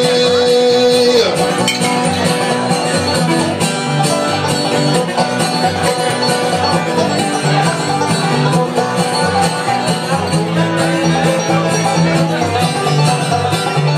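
Bluegrass band playing an instrumental break with fast picked banjo and acoustic guitar in a steady rhythm. A held note at the start breaks off about a second in.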